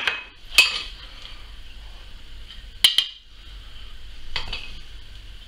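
A metal spoon clinking against a glass dish and a plate as roasted butternut squash is spooned out: one sharp clink about half a second in, a quick double clink about three seconds in, and a softer knock later, over a faint steady hiss.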